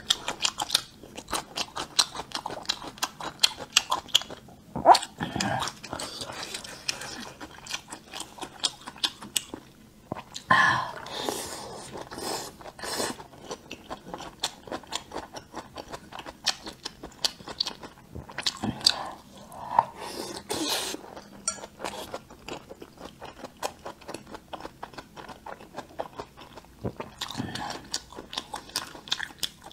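Close-miked chewing and biting of spicy grilled vegetable skewers: crisp crunches in quick succession, with a few wetter, denser bites mixed in.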